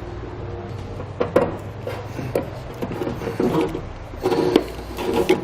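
Wiring harness cable and plug being fed down through a hole in a pickup's metal bed: rubbing, scraping and light knocks, busier near the end, over a steady low hum.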